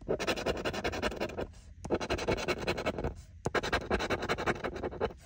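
A metal tool scraping the coating off a California Lottery scratch-off ticket. It goes in three runs of rapid back-and-forth strokes, with two brief pauses between them.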